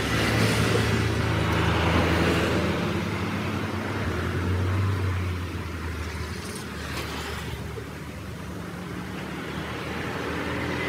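A car engine running steadily with a low hum, fading somewhat about halfway through, with roadside traffic around it.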